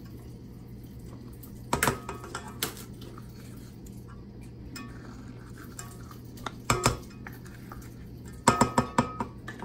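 Spatula and applesauce cup knocking against a stainless steel mixing bowl while the applesauce is scraped out: separate clinks with a short metallic ring about two seconds in, near three seconds, near seven seconds, and a quick run of them near the end.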